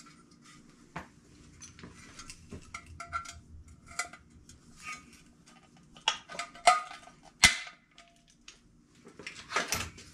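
Metal clinks and sharp clicks as a golf cart engine's fan housing and screen are handled and worked on, with a few louder clacks between about six and seven and a half seconds in and a cluster near the end.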